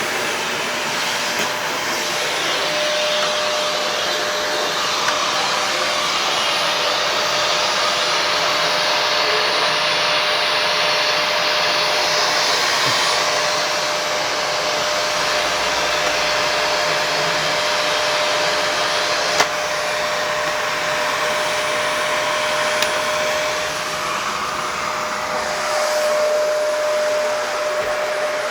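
Shark vacuum cleaner running steadily over carpet, a continuous rushing hum with a steady whine, and one sharp click about two-thirds of the way through.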